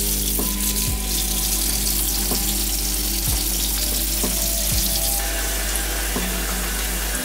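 Water running from a tap, filling a baby's bath.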